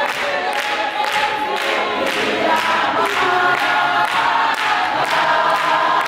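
Congregation singing unaccompanied in harmony, with a steady beat of hand-clapping, about two claps a second.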